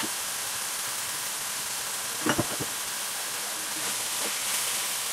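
Minced meat sizzling as it fries in a nonstick pan, a steady hiss, with a metal spatula knocking against the pan a couple of times a little over two seconds in.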